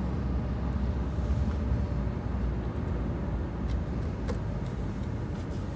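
Steady low rumble of a car driving, heard from inside: engine and road noise, with a couple of faint clicks about four seconds in.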